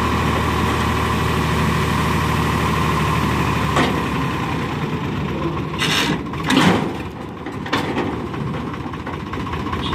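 Tractor engine running steadily while the hydraulic tipper trailer unloads sand; its even hum changes and grows rougher about a third of the way in. A few sharp knocks come just past the middle, the loudest of them about two thirds through.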